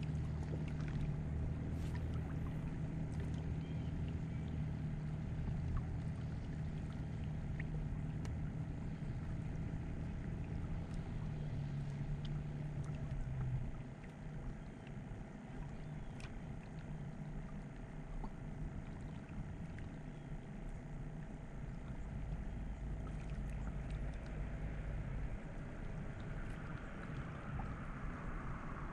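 A distant motor drones steadily at a low pitch, then drops away about fourteen seconds in, leaving a quieter steady background.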